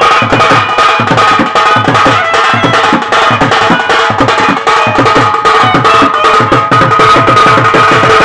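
Live folk music: fast, dense drumming on a hand-played two-headed barrel drum (dhol) and a small stick-played drum, with a clarinet holding long notes over the beat.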